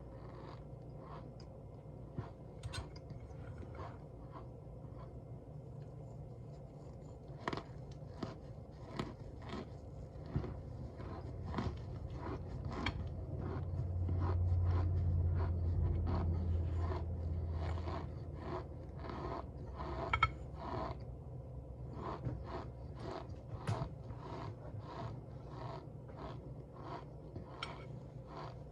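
Cornstarch being squeezed and crunched, a run of short crunches and squeaks: sparse at first, then coming quickly, several a second, from about seven seconds in. A low hum swells for a few seconds midway.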